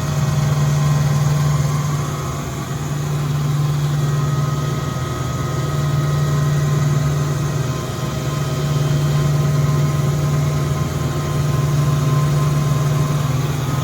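Electric-driven 10 hp rotary screw air compressor (Rogers KI-10-150) in its sound enclosure, running steadily: an even low hum with faint steady whines above it, swelling and easing slightly every few seconds. It is not piped to anything, so it runs without building pressure.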